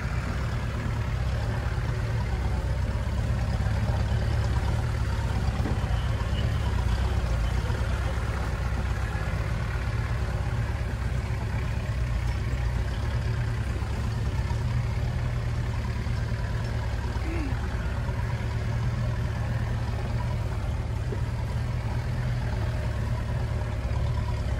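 Land Rover 4x4 engine running steadily with a low, even rumble.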